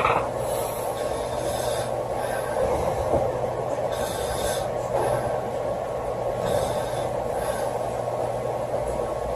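A sleeping girl snoring, with a breath about every two to two and a half seconds, over a steady background hum.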